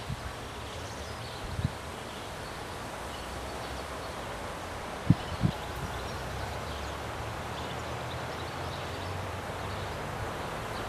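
Outdoor ambience: a steady low rumble with faint rustling, broken by three short low thumps, the loudest about five seconds in.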